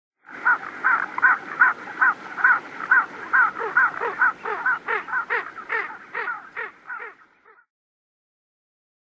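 Ring-necked duck calling: a rapid series of short, repeated calls, about three a second, growing fainter and stopping about seven and a half seconds in.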